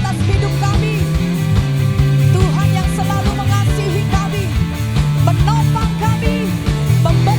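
Live band playing an upbeat rock-style worship song: a drum kit keeping a steady beat under a moving bass line and electric guitar, with lead lines bending in pitch.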